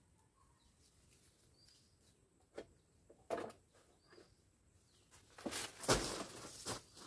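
Two sharp clicks while someone works in a tree's branches, then a burst of rustling leaves and a thump near the end as they step down off a wooden stool. A few faint bird chirps.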